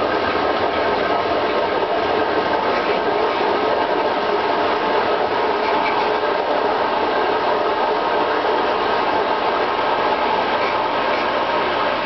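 A 1993 KitchenAid dishwasher running a wash, its 1/2 horsepower motor driving the hydro-sweep wash arms, which spray water against the racks and tub: a loud, steady rush of water over the hum of the motor. With the door open and only plastic film over the tub, the spray is heard unmuffled.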